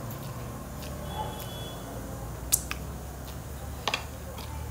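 A metal fork clicking against a plate as noodles are twirled and lifted: one sharp click about halfway through, then a quick double click near the end, over a low steady hum.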